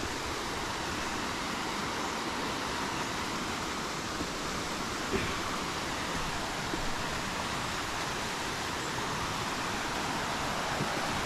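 River rapids: steady rushing water that gets a little louder toward the end, with a few faint knocks.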